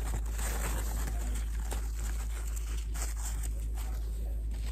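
Soft rustling and crinkling of tissue paper being peeled by hand off a small resin model horse, a series of faint scattered crackles over a steady low background hum.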